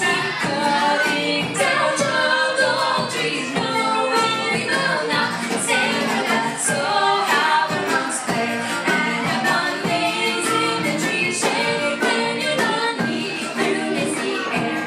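A live band playing a pop song: electric guitars, bass guitar and keyboard over drum hits, with voices singing.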